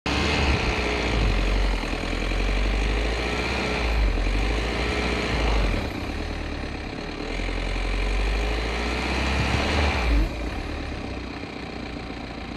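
A motor vehicle's engine running over a heavy low rumble, its pitch rising and falling several times. The sound drops off sharply about ten seconds in.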